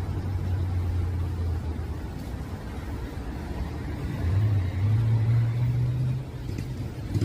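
Car engine running with a low steady hum, growing louder and a little higher in pitch from about four to six seconds in, as a vehicle runs harder or passes close.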